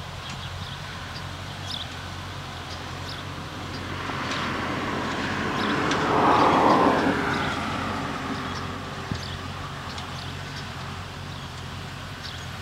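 Massey Ferguson 265 tractor running steadily as it pulls a New Holland Hayliner 286 baler, the machinery growing louder to a peak around the middle and then easing back.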